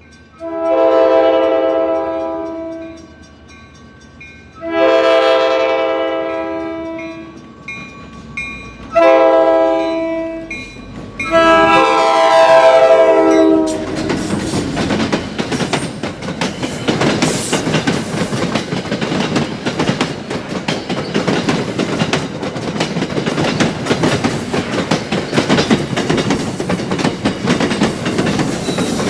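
CapeFlyer passenger train's diesel locomotive sounding its multi-chime horn in the grade-crossing pattern: long, long, short, long. Then the train runs close past, and its wheels rumble and clatter steadily on the rails.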